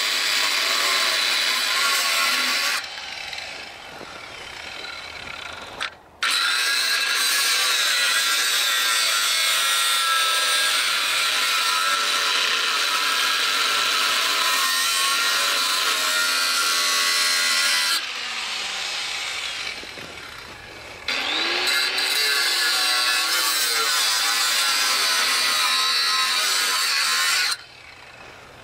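Corded angle grinder cutting through a steel trailer frame, a loud steady grinding in three long runs broken by short pauses about 3 and 18 seconds in. It stops near the end.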